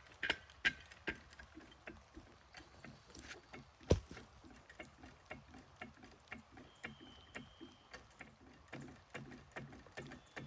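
Irregular light knocks and clicks of timber work, about two or three a second, with one sharper, louder knock about four seconds in.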